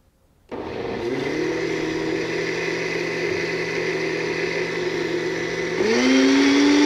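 Countertop blender switched on about half a second in, its motor spinning up and running steadily on low speed as it purées hot bell pepper soup, then stepping up to a higher speed near the end, louder and higher in pitch.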